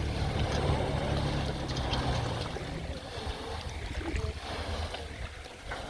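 Jet ski engine running with water splashing around it. The engine hum drops away about two and a half seconds in, leaving the water and wind.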